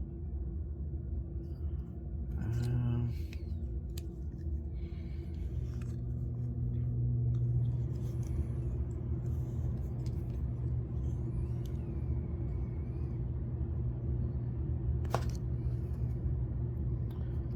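Steady low rumble, with a few light metallic clicks as the implements of a Leatherman Bolster multi-tool are opened and checked, and one sharper click about 15 seconds in.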